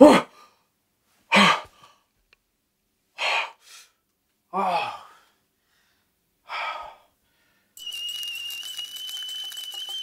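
A man gasping and groaning in shock: five short breathy outbursts a second or two apart, some with a falling pitch. About eight seconds in, an omelet starts sizzling in a frying pan, a steady crackling hiss with a thin high tone running through it.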